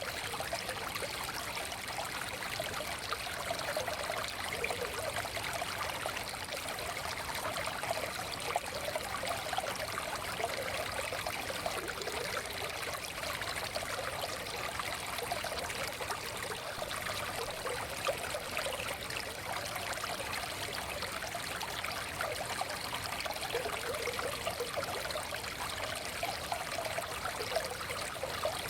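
Forest stream flowing steadily, a continuous babbling rush of water over stones.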